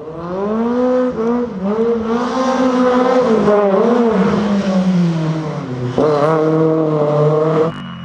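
Rally car engine revving hard as the car accelerates, its pitch rising and dipping with quick gear changes, then falling as it slows. About six seconds in, a new burst of high revs starts abruptly and cuts off sharply just before the end.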